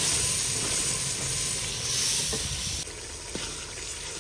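Masala paste frying in oil in an aluminium pot, sizzling steadily while a ladle stirs it, with a few light scrapes and knocks of the ladle; the paste is being fried down until it browns. The sizzle turns quieter a little before three seconds in.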